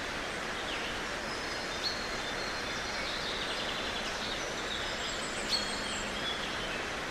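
Steady outdoor background hiss with several birds calling over it: short whistles and chirps, a quick trill about three seconds in, and sharper calls about two seconds and five and a half seconds in.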